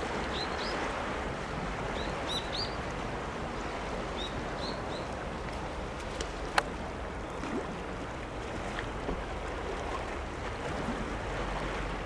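Sea washing steadily against a rocky shore. Short high bird chirps come in little groups during the first five seconds, and a single sharp click sounds about six and a half seconds in.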